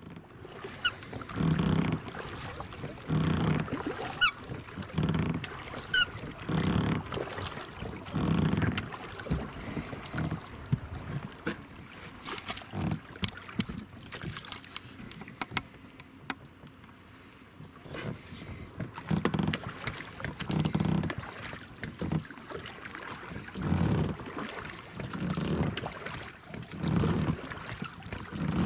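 Water slapping against the hull of a small inflatable boat underway, in regular splashes about every one and a half seconds.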